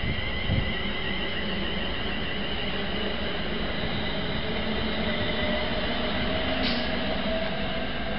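London Midland Class 350 Desiro electric multiple unit running past, a steady rumble of wheels on rail under several held whining tones from its traction equipment, one of them rising slightly in the second half. A brief low thump about half a second in.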